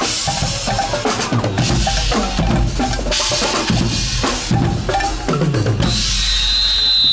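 Carnival band music: a drum kit's bass and snare drum beating under pitched instruments playing a tune. A high steady tone comes in for about the last second.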